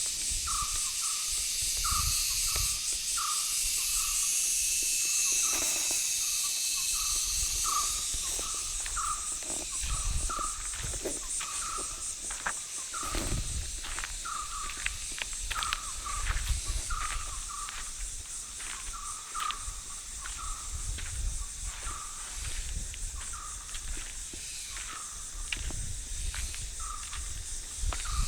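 Forest ambience: a dense, steady chorus of crickets or similar insects, louder for the first several seconds, with an animal's short call repeating about once a second throughout. Low rumbles and a few clicks come and go.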